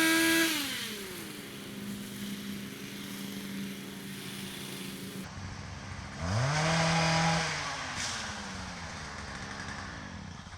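Two-stroke chainsaw revved to full throttle for about a second, then dropping back to a steady idle. A second burst of throttle comes about six seconds in and again falls back to idle.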